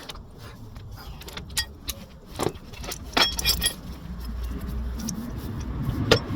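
Metal sidestand parts and tools clinking and clicking as they are handled, with a brief jingling ring of metal about three seconds in and a low rumbling of handling noise toward the end.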